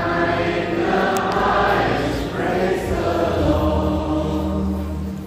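Choir singing: several voices in sustained harmony over long held low notes, easing slightly near the end.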